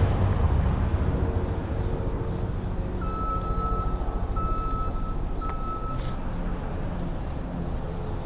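Manhattan avenue traffic: a steady low rumble of engines and tyres. Partway through, a high electronic beep sounds three times in a row, and a short hiss follows just after the last beep.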